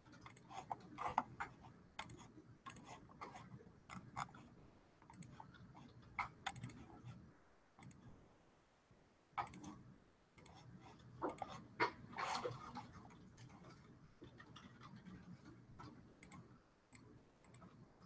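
Faint, irregular clicking of a computer mouse, with a few louder clicks in the middle stretch, over low room noise.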